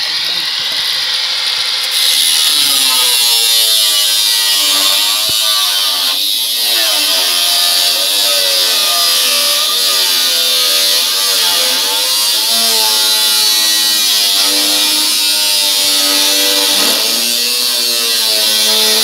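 Angle grinder cutting through the sheet-metal housing of an exhaust fan, its whine wavering up and down in pitch as the disc works through the cut. The disc bites into the metal and the sound grows louder about two seconds in.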